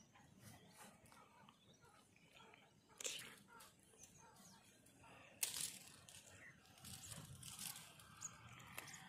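Near silence, broken by two short, sharp noises, about three seconds and five and a half seconds in.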